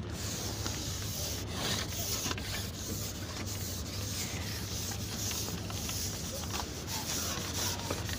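Close rustling and rubbing against the microphone, a dense scratchy hiss full of fine crackles, over a low steady hum.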